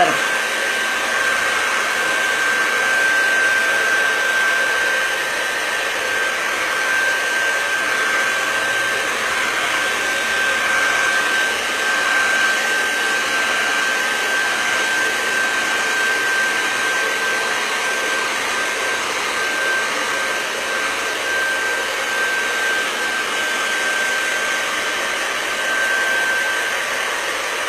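Hand-held hair dryer running steadily, a rush of blown air with a thin steady whine, drying a wet coat of relief texture paste.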